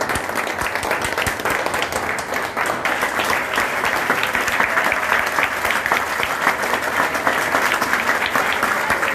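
A group of people applauding, many hands clapping in a dense, steady patter that grows a little fuller about three seconds in.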